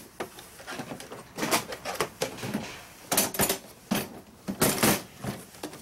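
Hard plastic Keter toolbox being gripped and lifted: irregular bursts of plastic knocks, clicks and rattles, loudest about three seconds in and again near five seconds.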